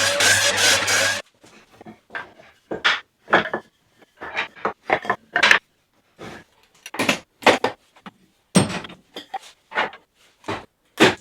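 A loud continuous noise cuts off abruptly about a second in. After that comes a long series of sharp, irregular knocks and clacks of wooden pieces being handled and set down.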